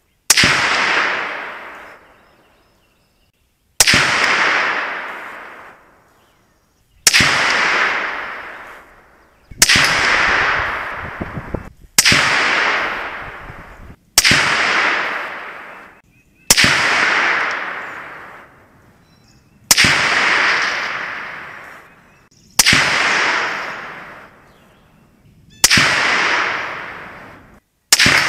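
About eleven single shots from a 20-inch Wilson Combat 5.56 AR-15 rifle, one every two to three seconds. Each is a sharp crack followed by an echo that dies away over about two seconds.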